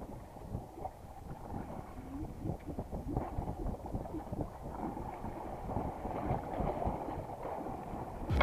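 Wind buffeting the microphone over the low wash of the sea around a small boat at drift, uneven and gusty.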